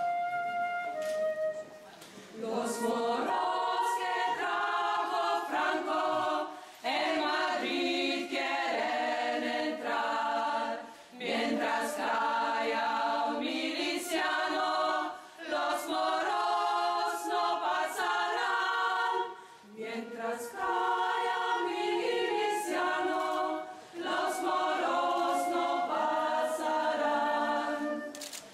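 A flute holds a note briefly at the start, then a choir sings in phrases of about four seconds, with short pauses for breath between them.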